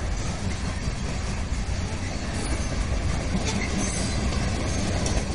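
Covered hopper cars of a freight train rolling past, a steady rumble of steel wheels on rail, with a few brief high wheel squeals about three and a half to four seconds in.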